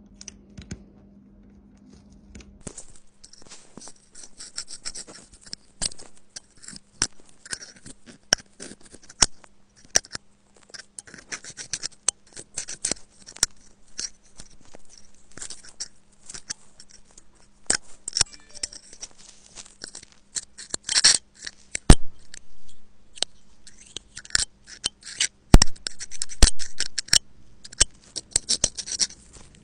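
A thin metal pick scraping and picking packed lint and dirt out of an iPhone's 30-pin dock connector port, heard close up as dry scratching with many sharp clicks and ticks. A few louder clicks come near the end. A faint steady low hum runs under it for the first part.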